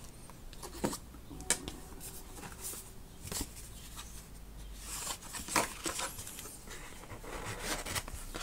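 Hands handling a fabric Hobonichi techo cover and a paperback notebook: irregular clicks, taps and rustles of paper and cloth as the notebook is slid into the cover's flap, busiest in the second half.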